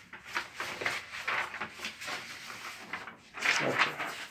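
Paper sheets being rustled and shuffled, with scraping handling noises, loudest about three and a half seconds in.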